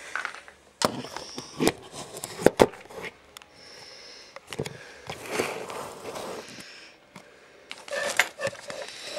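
Camera handling noise: a few sharp knocks and clicks, with rustling between, as a handheld camera is moved and set down among plastic containers.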